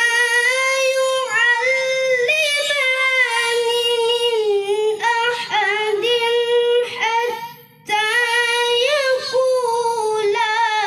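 A child reciting the Qur'an in the melodic tilawah style: one high voice holding long notes with quick ornamented turns. It pauses for breath about seven and a half seconds in, then starts the next phrase.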